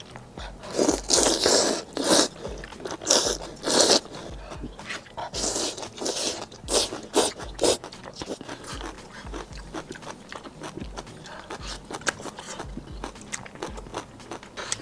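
Close-miked eating of spicy snail rice noodles and firecracker bamboo shoots: loud noodle slurps and crunching bites come in groups over the first eight seconds or so, then quieter chewing.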